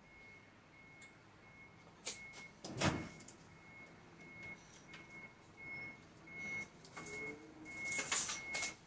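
Cookware being handled: a few knocks and scrapes, loudest about three seconds in and again near the end, over a faint, broken high-pitched beeping.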